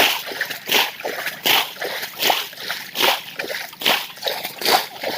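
Water being bailed by hand out of a shallow pond, splashing in a steady rhythm of about one stroke every three-quarters of a second.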